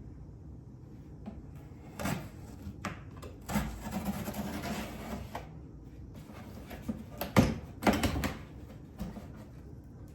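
Packaging being handled while a parcel is unboxed: a few light clicks, a rustle lasting about two seconds, then two sharp knocks a little before the end.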